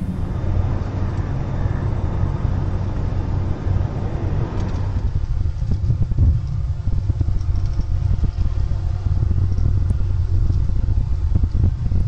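The four PS-90A turbofans of an Ilyushin Il-76TD-90VD cargo jet running at low taxi power: a steady low rumble, with a higher rushing sound that fades about five seconds in.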